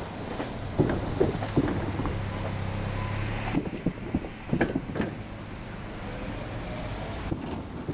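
Train running over the level crossing's rails and moving away, with irregular clacks of wheels over the rail joints. A low running hum drops away about three and a half seconds in.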